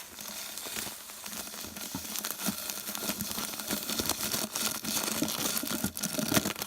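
Continuous crinkling and rustling handling noise with many small clicks scattered through it.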